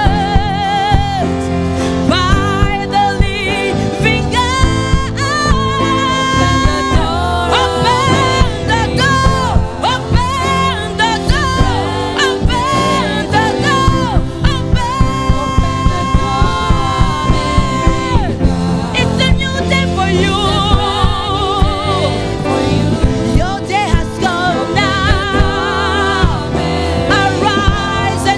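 Live gospel worship music: a woman sings with a wavering vibrato over a band of bass guitar, electric guitar, keyboards and drums keeping a steady beat.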